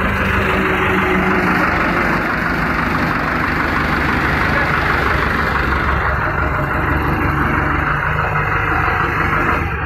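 Diesel tractor engine idling steadily, close by.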